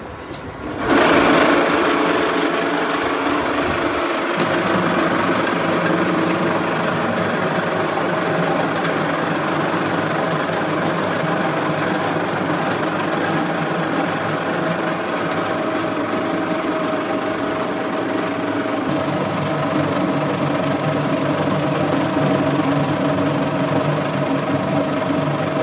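A potato peeling machine starts about a second in and runs steadily. Its electric motor hums while potatoes churn against each other in the water-sprayed drum, shedding their skins.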